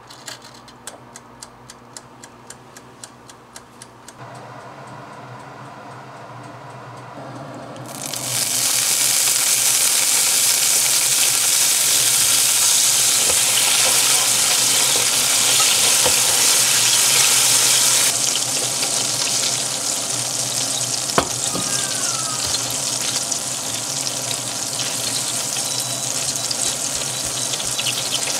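Hamburg steak sauce sizzling and bubbling hard in a frying pan while it is stirred with a spatula; the sizzle starts suddenly about eight seconds in and eases somewhat after about eighteen seconds, with one sharp knock a little past twenty-one seconds. Before it, the timer dial of a Bruno steam toaster oven clicks about four times a second as it is turned.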